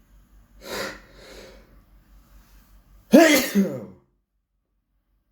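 A person sneezing loudly. A shorter, breathy burst comes about a second in; about three seconds in comes the loudest part, a voiced sneeze whose pitch falls away as it ends.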